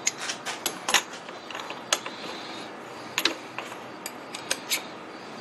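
Irregular sharp metallic clicks and clinks from hand work at a milling machine's spindle, fitting a quarter-inch roughing end mill.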